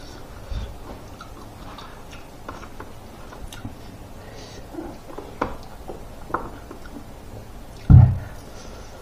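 Close-miked chewing and wet mouth sounds of a person eating rice and grilled smoked pork by hand, with scattered short clicks and smacks. A loud low thump comes about eight seconds in.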